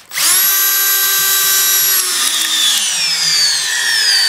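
Milwaukee 18V cordless drill driving a half-inch lag bolt through a socket into a 4x6 with no pilot hole. The motor whine starts at once, holds steady for about two seconds, then falls in pitch as the bolt bites deeper and the load rises, without stalling.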